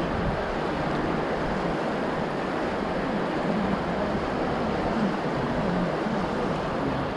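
Steady rush of river water flowing over shallow riffles and past a kayak.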